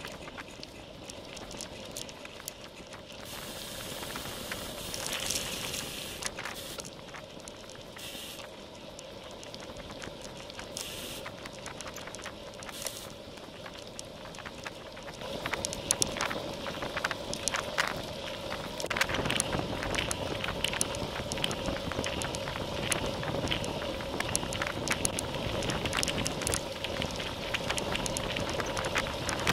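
Cyclocross bike riding along a path, heard through a bike-mounted camera's microphone: wind noise and tyre rumble, with frequent small clicks and rattles from bumps in the path. The noise gets louder and busier about halfway through.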